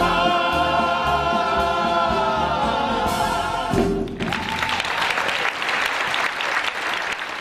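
Solo singer and chorus holding the final sung note of the song over the accompaniment, ending on a short closing chord about four seconds in; then audience applause.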